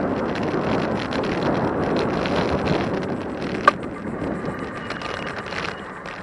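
Wind rushing over the microphone during an e-bike ride, easing off toward the end, with a single sharp click a little past halfway.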